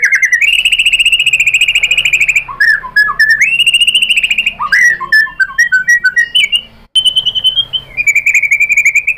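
White-rumped shama (murai batu) singing loud, fast trills of rapidly repeated notes. In the middle the trills give way to a run of varied short whistled notes, then the trills resume after a brief gap.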